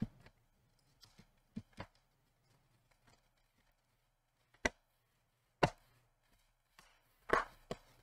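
Plastic snap-fit clips of an HP TPN-C129 laptop's bottom case clicking into place as the panel is pressed down around its edges. Scattered sharp clicks, a few faint ones early, the loudest one about five and a half seconds in, and a short cluster of clicks near the end.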